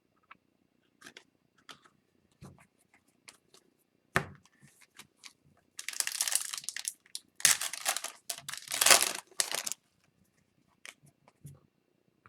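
A hockey card pack wrapper being torn open and crinkled, loudest between about six and ten seconds in. Before that come light clicks and taps from handling the cards, with one sharper tap about four seconds in.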